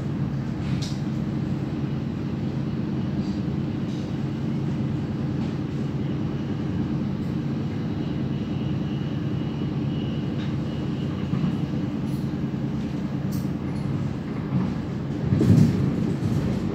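Interior running noise of an NS VIRMm double-deck electric train at speed: a steady low hum with faint scattered ticks. A brief louder rumble about fifteen seconds in.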